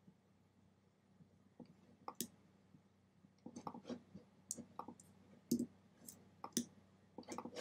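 Faint computer mouse clicks: a scattering of short, sharp ticks at uneven intervals, more frequent in the second half.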